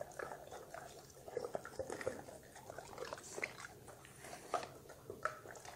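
Two dogs eating vegetable pieces off wooden boards: irregular chewing crunches and small mouth clicks.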